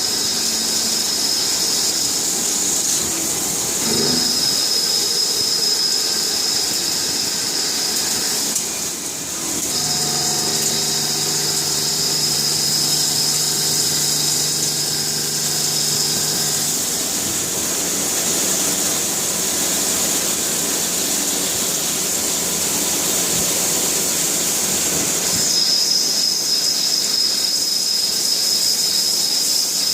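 Jyoti DX200 CNC turning centre machining a bearing housing: a steady hiss under a high-pitched squealing whine that breaks off briefly a few times, with a long break in the middle before it returns.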